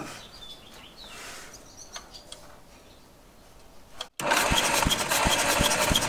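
Caterpillar pony (starting) motor being cranked over with its spark plugs out for a spark test, starting suddenly about four seconds in with a steady rhythm of about three beats a second; it does not fire.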